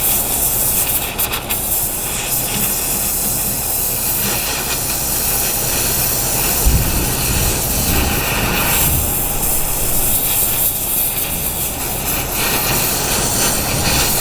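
Oxy-acetylene torch flame hissing steadily as it heats a seized, rusted nut toward cherry red, so it expands before the bolt inside gets hot and can be wrenched loose.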